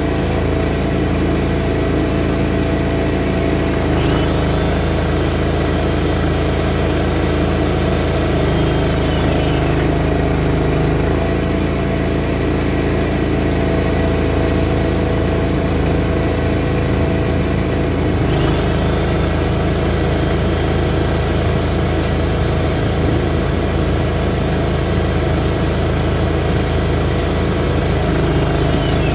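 Greens mower engine running steadily. A high whine comes in about four seconds in, drops out around ten seconds, and returns around eighteen seconds, sliding away again near the end.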